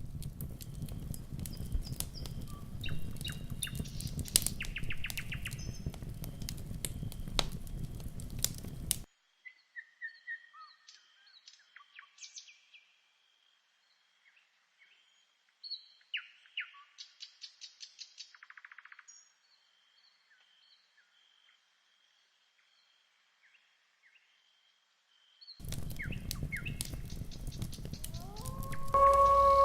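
Campfire crackling and popping for the first nine seconds, then cutting off abruptly, leaving scattered bird chirps over a faint steady high tone. The fire crackle returns abruptly near the end, and a long howl starts just before the end.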